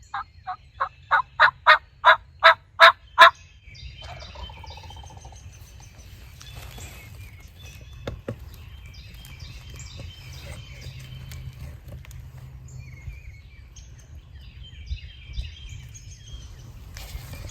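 A run of about eleven turkey yelps, evenly spaced at about three a second and growing louder, lasting a little over three seconds. Songbirds then chirp and sing faintly over a low steady rumble.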